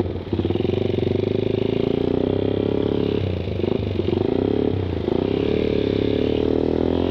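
Suzuki Satria FU 150 carburettor-model single-cylinder engine pulling away and accelerating. Its note rises over the first few seconds, wavers a little past the middle, then climbs again.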